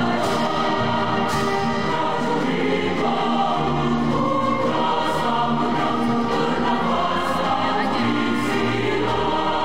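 Background music: a choir singing sustained notes over instrumental accompaniment, at a steady level.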